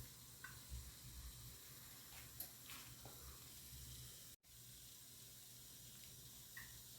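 Near silence: room tone with a faint steady hiss and low hum, a few soft ticks, and a brief dropout to dead silence a little after four seconds in.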